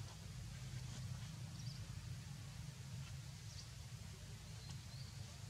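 Quiet outdoor ambience: a steady low rumble under a faint hiss, with a few faint, short high chirps scattered through it.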